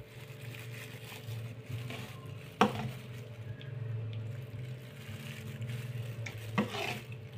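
Soup being ladled into a bowl: a metal ladle clinks twice, about four seconds apart, over a steady low hum.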